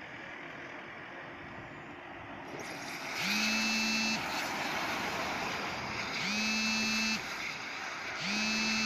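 A horn blows three times, in blasts of about a second each, every blast sliding up briefly in pitch at its start and then holding one steady note, over a steady rushing noise.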